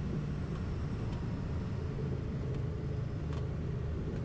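Cessna 310R's twin piston engines running steadily at low power after landing, a constant low drone.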